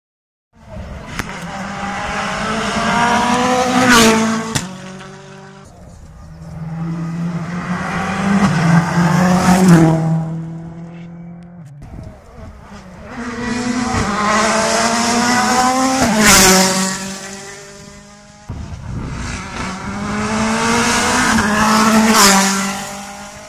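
Rally cars passing one after another at full speed, four in all. Each car's engine revs hard, its note climbing as it comes closer, and is loudest as it passes, with a sharp crack at that moment.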